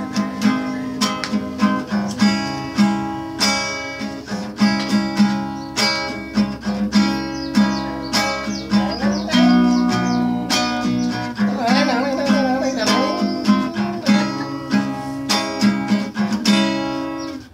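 Instrumental passage of a slow pop ballad: an acoustic guitar strums chords in a steady rhythm, with a wavering melody line about twelve seconds in.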